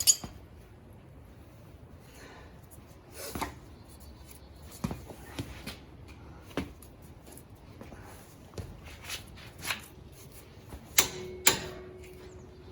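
Scattered clicks and knocks of hand tools and metal parts being handled while the axle nut on a rear wheel hub is tightened. Two sharper clicks come about eleven seconds in, the second followed by a brief ringing tone.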